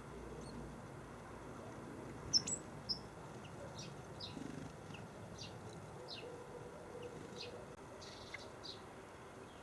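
Small garden birds chirping: short, high chirps scattered through, the loudest a couple of seconds in.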